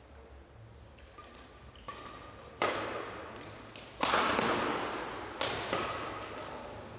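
Badminton rackets hitting the shuttlecock in a rally: three sharp hits about a second and a half apart, each ringing on in the hall's echo. Short squeaks of shoes on the court floor come in between.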